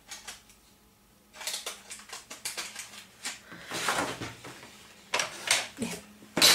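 Cardstock rustling and sliding, with quick plastic clicks and taps as a paper trimmer is handled. After a quiet first second or so the sounds come in a quick, uneven run.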